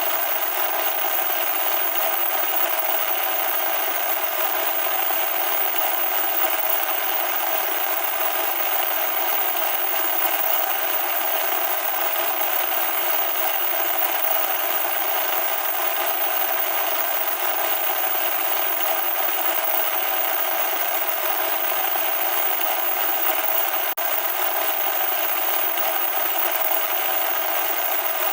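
Loud, steady static noise: an even, harsh hiss with no bass.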